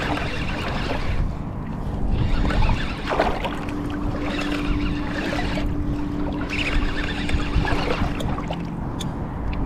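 Water sloshing and wind noise around a wading angler as a large spinning reel is cranked steadily, reeling in a hooked shark. A low steady hum runs through the middle.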